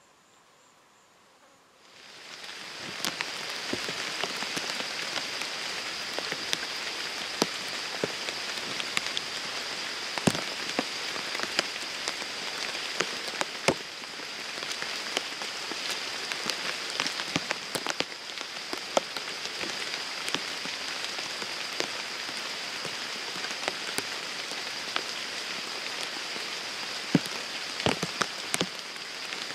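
Steady rain falling on a pond and grass, a dense hiss with many sharp drop ticks close by. It starts suddenly about two seconds in after near silence, and a steady high-pitched tone runs through it.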